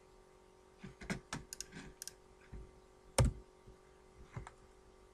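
Computer mouse and keyboard clicks: a quick run of sharp clicks about a second in, one louder thump around three seconds in, and a couple more clicks near the end, over a faint steady hum.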